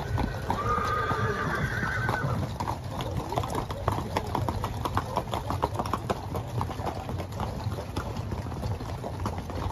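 Hooves of many horses clip-clopping at a walk on a dirt road, an irregular patter of many overlapping steps. A horse neighs for about two seconds near the start.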